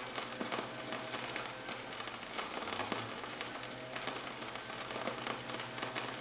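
Record surface noise in the quiet groove between two songs: a steady hiss scattered with light crackles and ticks, over a faint low hum.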